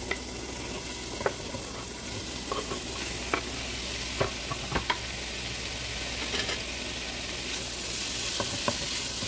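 Cubed raw beef sirloin sizzling steadily in hot avocado oil as it is scraped into the pot and stirred with a spatula, with scattered light knocks and scrapes of the knife and spatula against the pot.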